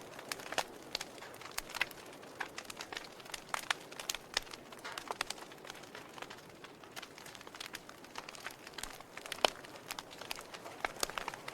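Wood fire crackling in a fireplace: irregular sharp pops and snaps over a soft hiss, with one louder pop about nine and a half seconds in.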